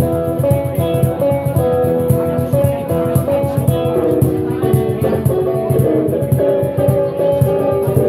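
Live acoustic band music: two guitars playing a rockabilly rhythm over a steady cajon beat.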